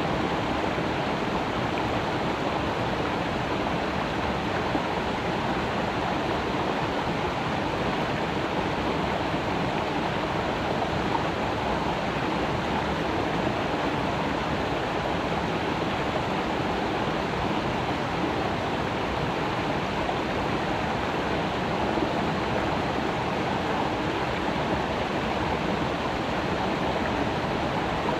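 Creek water running steadily over rocks, a continuous rushing and burbling.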